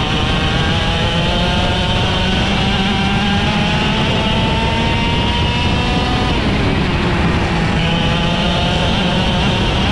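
IAME X30 125cc two-stroke kart engine at race speed, its revs climbing steadily for about six seconds, falling briefly, then climbing again.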